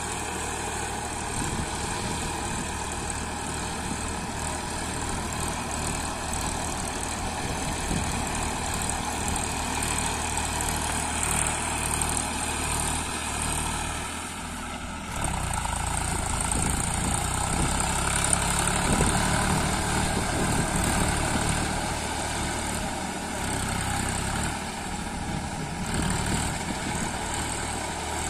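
Small diesel tractor on cage wheels running steadily under load as it churns through a flooded paddy field. The engine dips briefly about halfway through and then comes back louder.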